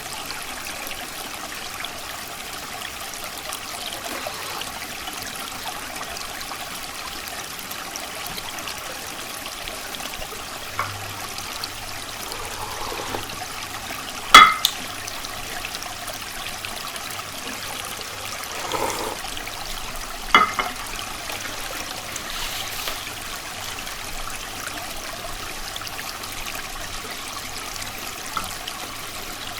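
A shallow stream flowing and trickling steadily. A few sharp knocks or clicks cut through it, the loudest about 14 seconds in and another about 20 seconds in.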